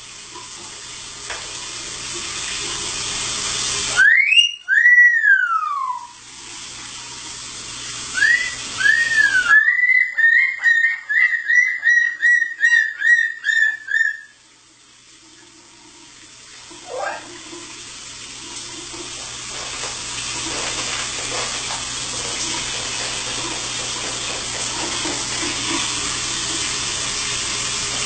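Shower spray running. In the middle come clear whistled notes: first one long whistle that rises and then falls, then a quick run of about a dozen short whistles, two or three a second.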